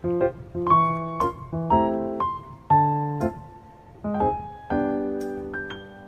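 Background piano music: notes and chords struck about every half second, each ringing and then fading.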